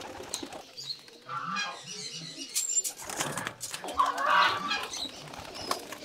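Pigeons flapping their wings, with a burst of sharp wing claps around the middle and a few low coos in the first couple of seconds.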